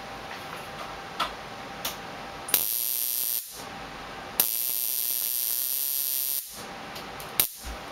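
High-voltage arc from an Arduino-driven flyback transformer, buzzing across a string of five high-voltage capacitors. It comes in two bursts: a short one of under a second starting about two and a half seconds in, then a longer one of about two seconds. A few short clicks come before and after the bursts.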